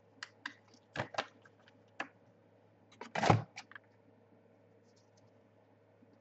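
NRL trading cards being handled and flicked through by hand: a string of short, sharp clicks, with one longer, louder scrape about three seconds in.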